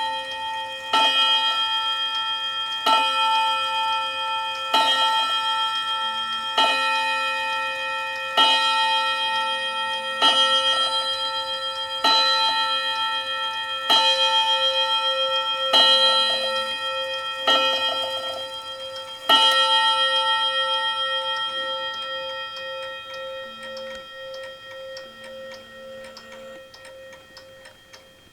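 ODO wall clock striking the hour on its bell, the man figure hitting it about once every two seconds, eleven strikes in all. After the last strike, about two-thirds of the way in, the bell rings on and slowly dies away.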